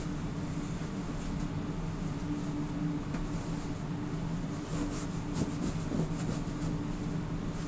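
A steady low machine hum, with faint rustling and soft ticks from a plush toy being handled, thickest about five to six seconds in.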